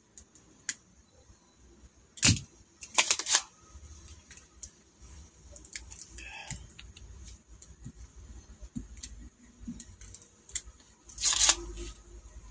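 Spring-loaded desoldering pump (solder sucker) snapping: a sharp click about two seconds in, a quick pair of clicks about a second later, and another near the end, amid faint handling noise.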